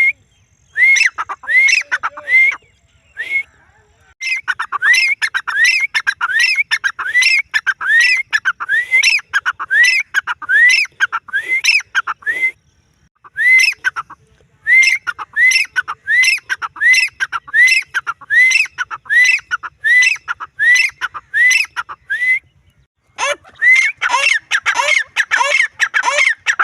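Grey francolin calling: loud, repeated up-swept notes, about two a second, in runs broken by short pauses. Near the end the calls grow denser and overlap.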